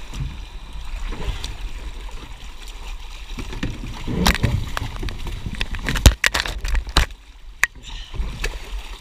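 Swift floodwater sloshing and gurgling around an overturned kayak. Several sharp knocks and splashes come between about four and seven seconds in, as the hull and paddle are handled in the current.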